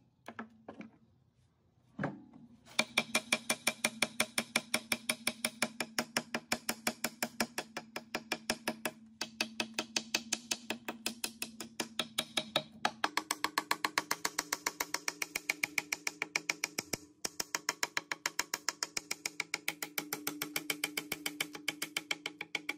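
Hammer rapidly tapping on a rusty cast-iron gearbox housing, knocking off rust scale, about four blows a second with short pauses. Each blow leaves a steady metallic ring that goes up in pitch about halfway through, as the strikes move to another part of the casting.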